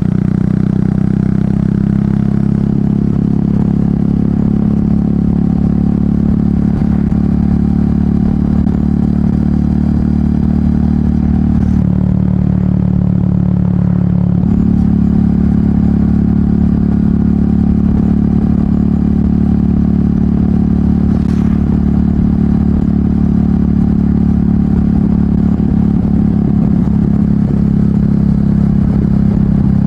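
Royal Enfield Meteor 350's single-cylinder engine running through an aftermarket exhaust while riding, its note steady apart from a brief dip about twelve seconds in that picks back up a couple of seconds later.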